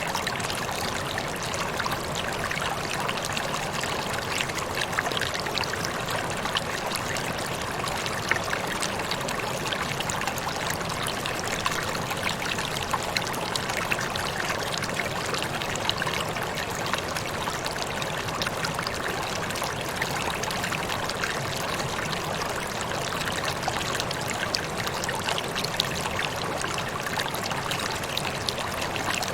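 Waterfall: a steady rush of falling water, with a constant patter of small splashes.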